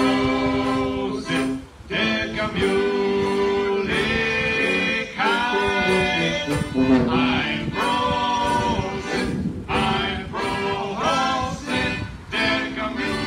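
Live oompah band music, with accordion, tuba and banjo playing together.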